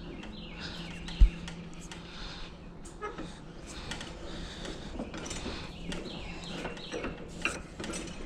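Small metallic clicks and creaks from a homemade spring-loaded vise being worked and adjusted, with one sharp thump about a second in.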